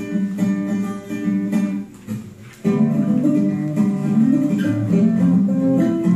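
Acoustic guitar music, plucked and strummed, growing fuller and louder about three seconds in.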